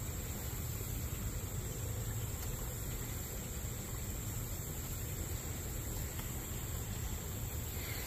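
Steady high-pitched insect chorus, crickets or similar insects calling, over a faint low rumble.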